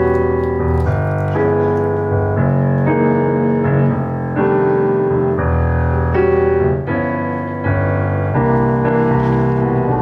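Keyboard music with an electric-piano sound: chords changing every half second or so over a steady bass line.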